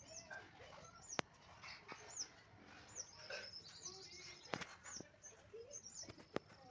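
Faint bird chirping, short high chirps repeating throughout, with a few sharp clicks.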